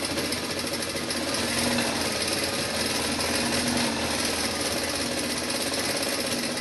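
Industrial sewing machine running steadily at speed, stitching a continuous seam through two layers of cap-brim fabric.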